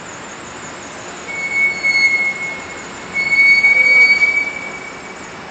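Two long, steady high-pitched squeals, each about a second and a half, with a short gap between them, over steady city street noise.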